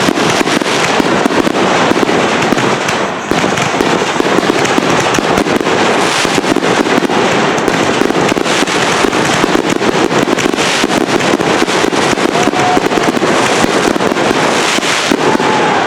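Fireworks going off in a dense, continuous barrage of rapid crackling pops. Brief whistles come twice near the end.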